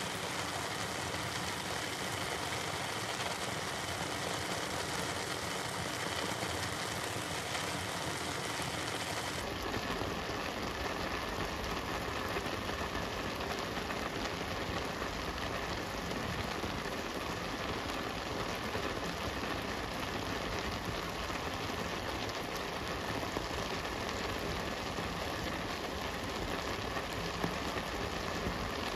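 Sliced banana blossom and jute leaves sizzling steadily in a metal wok. The noise shifts in character about nine seconds in.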